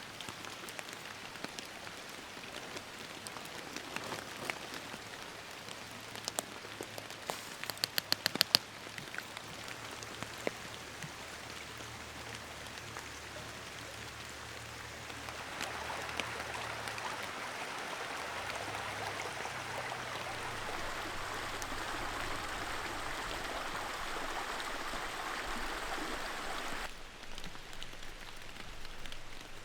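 Steady rain, drops hitting a surface, with a short run of sharp ticks about eight seconds in. From about halfway the rain is louder and denser, then it eases off near the end.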